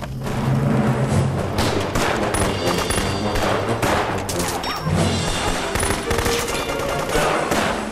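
Battle gunfire: many rapid rifle and machine-gun shots crackling close together, with dramatic background music underneath.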